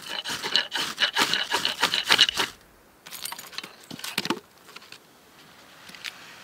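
Ferro rod scraped hard and fast with a striker, throwing sparks onto charred wood to light a fire: a quick run of rasping strokes for about two and a half seconds. After that comes softer scuffing and crumbling as the smouldering charcoal is handled.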